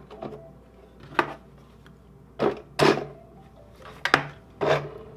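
Radio Shack Super Street Acura RSX 1/10-scale RC car's electric motor whirring in about six short throttle blips, its wheels spinning on the desk.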